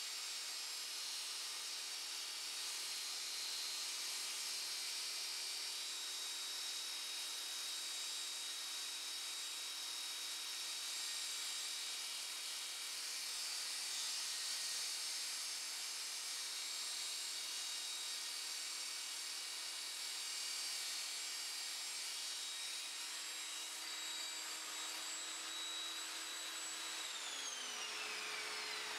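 Evolution Rage 5-S table saw running steadily with a high whine while its 10-inch blade cuts a Perspex acrylic sheet. Near the end the saw is switched off and the whine falls in pitch as the blade winds down.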